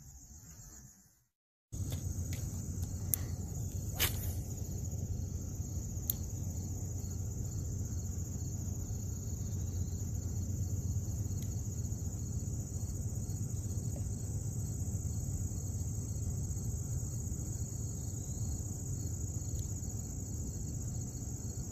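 Insects chirring steadily in a high band, over a low steady rumble. A few sharp clicks come about three, four and six seconds in, after a brief dropout near the start.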